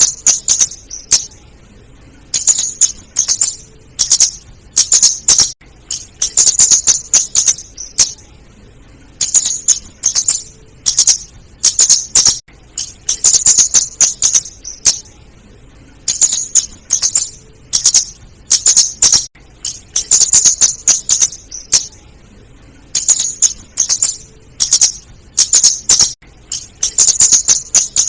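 Female flowerpecker (kemade / cabe jawa) giving rapid, high-pitched chattering calls in bursts of about a second, repeating every two to three seconds: a lure call used to draw in these birds.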